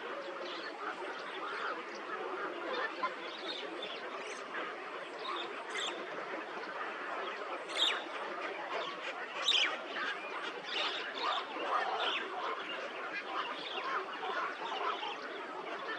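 Many birds calling at once in a dense, continuous chorus of short calls. A few sharper, louder calls stand out about six, eight and nine and a half seconds in.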